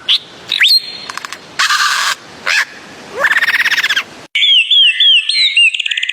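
Bird calls: a rising whistle, harsh screechy calls and a fast rattling trill. About four seconds in, an abrupt cut to a different bird's repeated slurred whistles, ending in a rapid trill.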